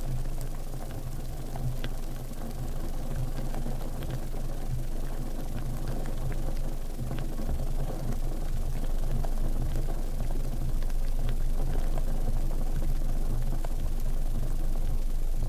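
A steady low rumble of an engine running at idle, with faint scattered clicks over it.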